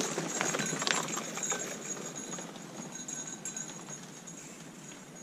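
Mountain bike rolling across a long wooden-slatted bridge: a quick run of knocks and clatter from the tyres on the boards, fading as the bike moves away.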